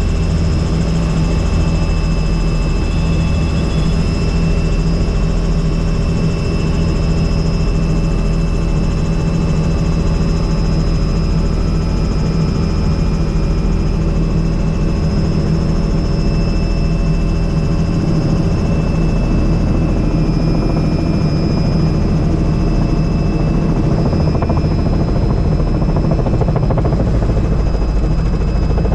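Helicopter in steady flight: loud, even rotor and engine noise, heaviest in the low end, with a steady high whine over it and no change in pitch or level.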